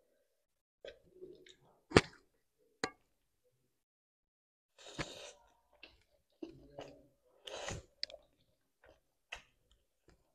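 Close-up mukbang eating sounds of spicy instant noodles: chewing and two longer slurps of noodles about halfway through and again about three quarters of the way through, with two sharp clicks early on.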